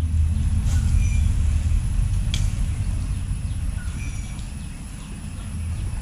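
Low, fluctuating rumble on the microphone while a lure is reeled in, with a faint sharp click about two and a half seconds in. A short high chirp sounds twice, about a second in and again about four seconds in, likely a bird.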